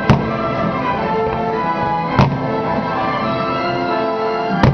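Orchestral fireworks-show music playing, with three distant firework bursts going off over it, about two seconds apart.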